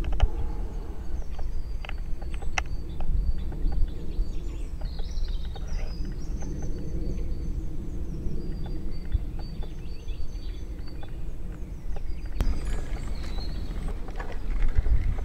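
Several songbirds singing in short, high phrases over a steady low rumble. Near the end, footsteps on a path strewn with dry leaves grow louder.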